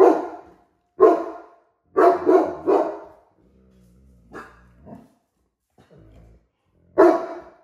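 Cane Corso giving deep, loud guard barks: a run of five barks in the first three seconds, a quieter stretch with two softer woofs, then one more loud bark near the end.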